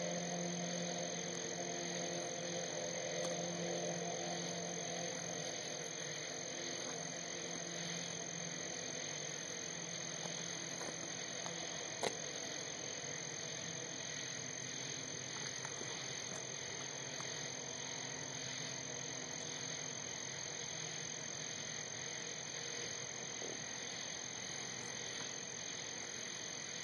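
A toad calling: one long, steady, low-pitched trill, strongest over the first five seconds and weaker after, over a steady chirring chorus of night insects. A single sharp click about twelve seconds in.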